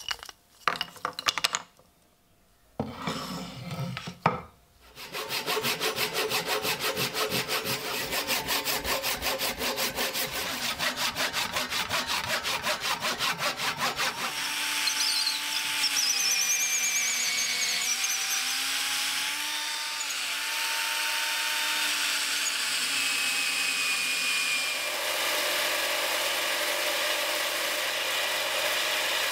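Woodworking sounds: a few sharp knocks as old wooden handle pieces are handled, then an even rhythm of wood being cut, several rasping strokes a second, for about ten seconds. From about halfway, a wood lathe spins a new handle blank while a tool cuts into it, giving a hissing cut over a motor tone that wavers in pitch. Near the end a belt sander takes over, with a steadier low hum.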